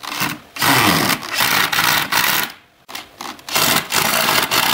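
Makita cordless driver driving a screw into pine wood, run in two bursts: one of about two and a half seconds, a short pause, then another starting about a second later.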